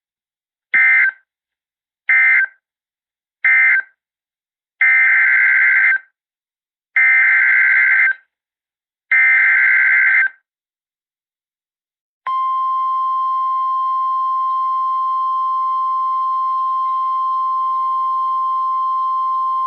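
Emergency Alert System data bursts. Three short screeching bursts (the end-of-message code) are followed by three longer bursts (the SAME header of the next alert). About twelve seconds in, the NOAA Weather Radio 1050 Hz warning alarm tone starts and holds as one loud, steady tone.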